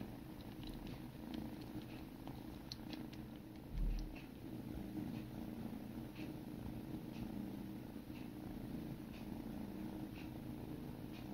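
Kittens purring steadily while they groom each other, with soft licking sounds every second or so. A low thump comes about four seconds in.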